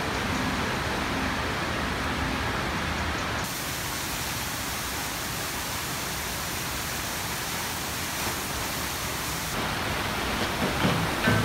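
Waterpark water rushing and splashing in three cut-together scenes: a rider splashing out of a tube slide into the pool, then water pouring in a sheet from a play structure, then the churning flow of a standing-wave surf machine. Music comes in near the end.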